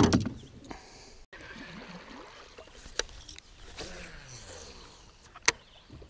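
A loud knock against the aluminum boat at the start, then a cast: the baitcasting reel's spool whirs, falling in pitch as it slows, and a sharp click sounds near the end.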